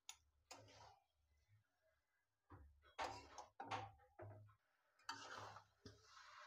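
Metal spoon scraping and knocking against a metal wok as noodles are tossed and stirred: a couple of strokes at the start, then a quick run of scrapes in the middle.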